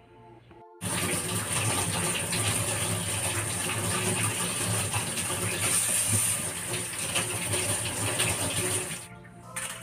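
Kitchen faucet running hard, water splashing onto sweet potatoes being rubbed clean by hand in a stainless steel sink. The water comes on suddenly about a second in and is shut off near the end.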